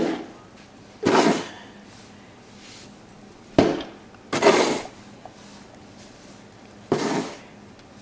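Snow shovel scraping and scooping through deep snow, five strokes a second or more apart, each a sudden scrape lasting under half a second.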